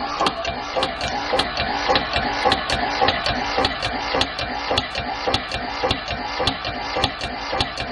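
Dometic Sealand S-style Vacuflush bellows vacuum pump running after a flush, its motor driving the bellows in a fast, even rhythm of strokes, about three a second, as it pulls the system back down to vacuum. The bellows is newly replaced, and the pump runs a cycle count the owner takes as about normal.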